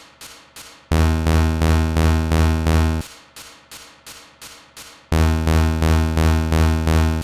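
Synthesised imitation of MRI scanner gradient noise. Quiet knocks about three a second alternate with two loud, pulsing buzzes of about two seconds each, one starting about a second in and one about five seconds in.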